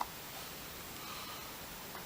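Faint steady hiss of a quiet room, with one light click right at the start.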